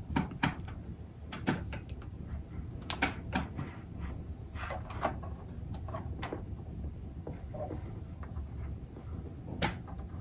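Scattered small clicks and rustles of hands working insulated electrical wire and a plastic inline fuse holder, over a low steady hum.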